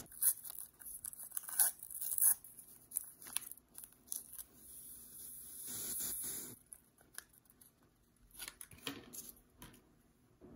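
Paper packet of gelatin dessert mix torn open with crackling, crinkling paper, then the powder poured into a bowl with a soft steady hiss for about two seconds. A few light taps and rustles follow near the end.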